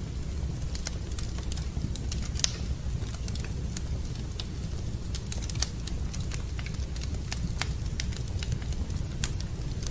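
Wood fire in a fireplace crackling: frequent, irregular sharp pops and snaps over a steady low rumble.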